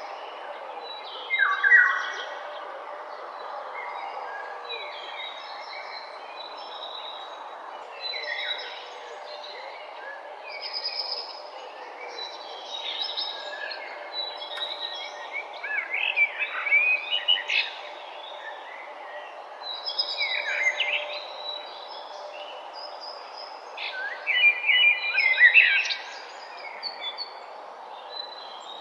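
Birds singing and calling in a morning chorus: short chirps and warbled phrases every second or two over a steady background hiss, loudest near the start and again near the end.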